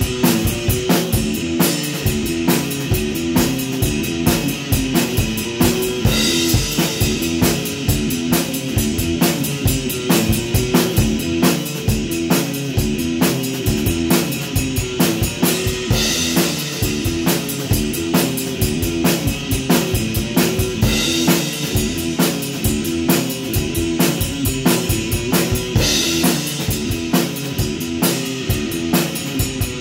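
Electric guitar and drum kit playing a rock jam together: a steady driving beat under a repeating guitar riff, with cymbal crashes every few seconds.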